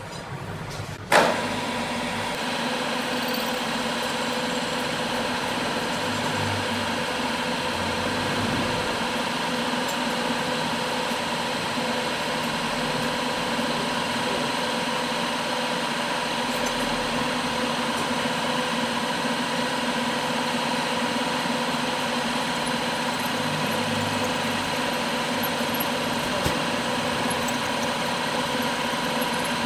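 Milling machine running an end mill through an alloy steel gear shaft, cutting a keyway: a steady machine hum with a constant whine. It starts abruptly about a second in.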